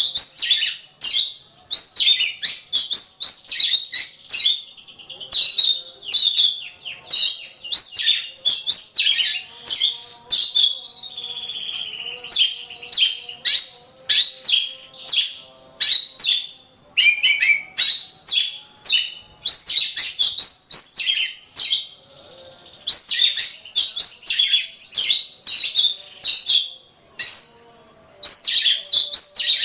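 Oriental magpie-robin (kacer) singing a fast, varied song of sharp sweeping whistles and chirps, with brief pauses and a slower falling whistle about twelve seconds in.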